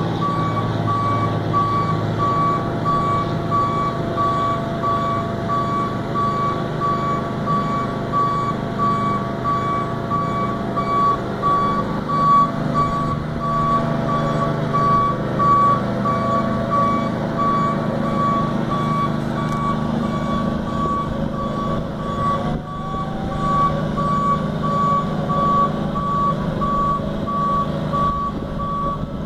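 Boom lift's motion alarm beeping: one steady tone repeated at even, short intervals, over the low steady drone of an engine.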